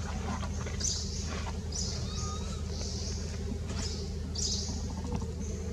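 Baby macaque crying: a series of short, high-pitched squeals, about one a second, over a steady low hum.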